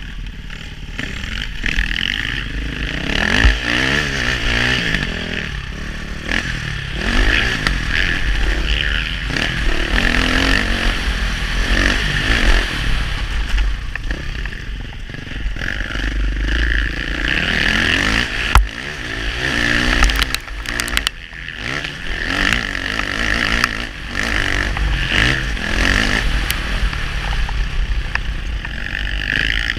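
KTM four-stroke single-cylinder motocross bike ridden hard, the engine revving up and falling back again and again through the gears. A low rumble of wind on the microphone runs underneath, and there are a few sharp knocks from the chassis over bumps, the loudest about two thirds of the way through.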